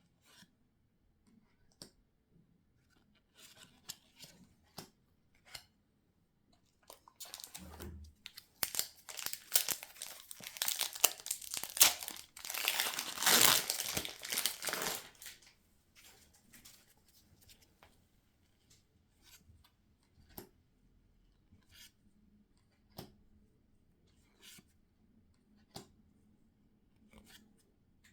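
A foil booster pack wrapper being torn open and crinkled for several seconds, loudest about halfway through. Before and after it come scattered light clicks and rustles of cards and packaging being handled.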